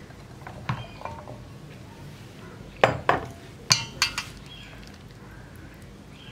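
Glass bowl knocking against a stainless steel mixing bowl as raw tapioca sticks are tipped into batter. A light click, then a cluster of sharp clinks and knocks about three to four seconds in.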